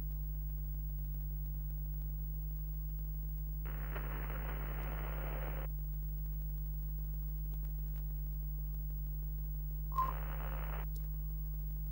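Steady low electrical hum with static-like hiss, the sound of an old television set. The static comes in twice: once for about two seconds a few seconds in, and again briefly near the end, starting with a click.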